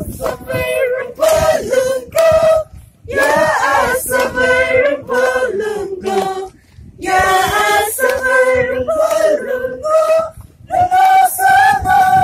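A crowd of men and women singing a chant together as they walk, in loud phrases of a second or a few seconds with short breaks between them.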